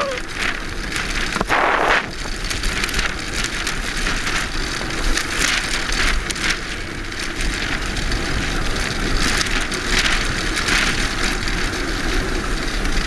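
Wind rushing over the microphone with the rumble of a land yacht's wheels rolling fast over hard sand, a steady noise with occasional louder gusts.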